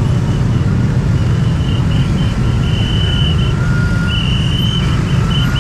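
Motorbike and bajaj engines idling together in close, stop-start traffic: a steady low rumble. A faint high tone comes and goes irregularly above it.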